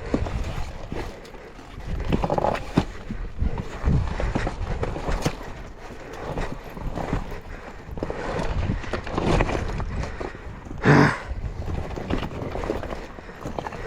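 Irregular knocks and clatter over a rough, noisy background, with one louder burst about eleven seconds in.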